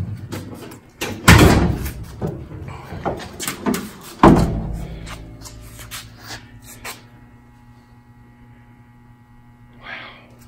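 Two loud slams, like a door or lid being shut, about three seconds apart, with smaller clicks and knocks around them. A faint steady hum of several tones follows.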